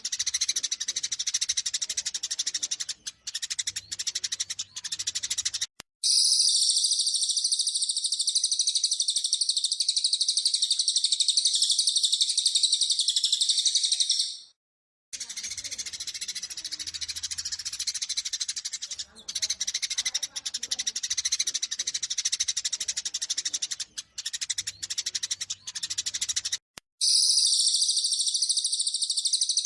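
Eurasian tree sparrows chattering in a rapid, agitated run of chirps, the sparrow 'fighting' call. It alternates with long stretches of a continuous high, fast trill from another bird, about a second in from the chirping, each section starting and stopping abruptly as in an edited loop.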